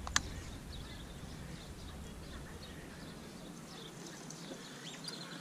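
Quiet outdoor ambience: faint, scattered bird chirps over a low rumble, with one sharp click just after the start.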